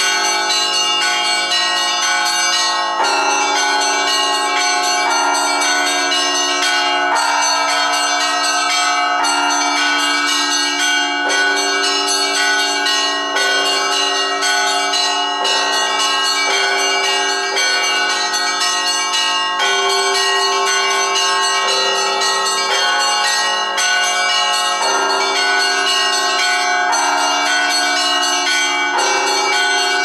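Russian Orthodox church bells ringing a continuous peal: many bells of different pitches struck together and in turn, their tones overlapping and ringing on, with the pattern changing about every two seconds.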